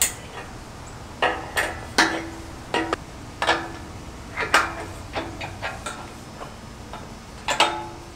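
Steel adjustable wrench clinking against the nuts and steel base plate of a basketball pole as the anchor-bolt nuts are tightened: a dozen or so sharp metallic clinks at irregular intervals, several leaving a short ring.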